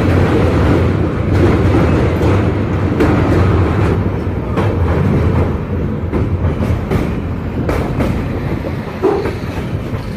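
Train running on the rails: a steady heavy rumble, with irregular clicks and clatter of the wheels over rail joints.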